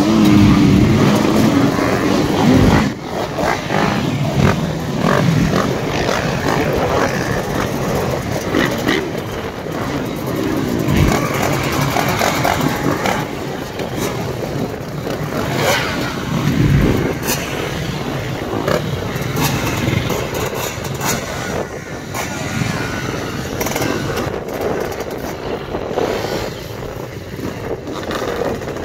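Several motocross bikes running and revving as they pass close by one after another, their engine notes overlapping and rising and falling.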